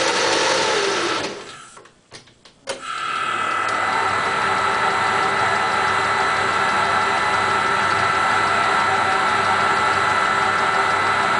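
Metal lathe running with a steady mechanical whine while facing the tops of steel taper pins flush with a hub face. About a second and a half in it drops out for about a second with a few clicks, then runs steadily again.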